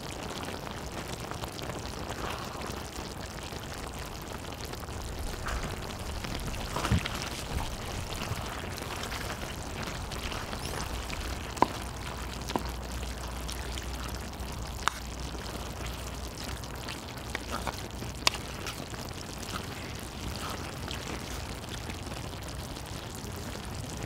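Spicy chicken stir-fry (dakgalbi) sauce sizzling and bubbling steadily on a cast-iron cauldron-lid griddle, with a few sharper clicks and scrapes from a wooden spatula stirring the udon noodles.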